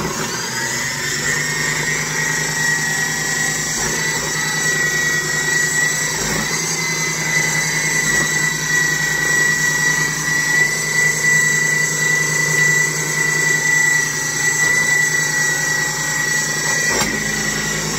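KitchenAid food processor motor running steadily with a high whine, chopping green peppers dropped in through the feed tube.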